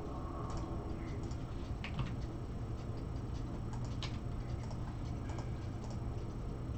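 Scattered sharp clicks of a computer mouse, a few at irregular intervals, over a steady low hum.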